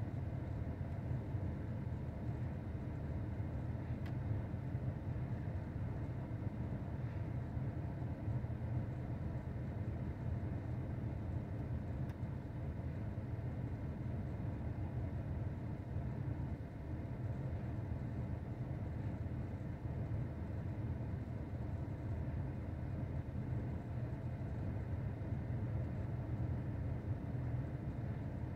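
Steady low rumble of engines from road traffic and construction machinery, with no single event standing out.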